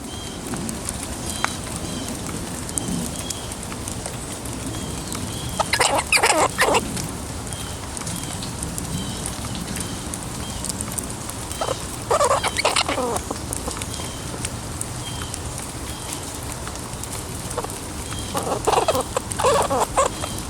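Squirrel squeaking as it is poked and petted, in three bursts of rapid squeaks about 6, 12 and 19 seconds in, over a steady hiss of rain.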